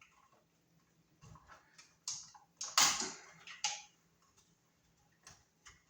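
Scattered clicks and short scrapes of an old wall receptacle and its wires being handled, the loudest a brief scrape about three seconds in.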